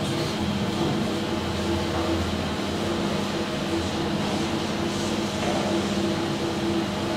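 Traction elevator car in motion, heard from inside the car: a steady machine hum with a few held tones and ride noise.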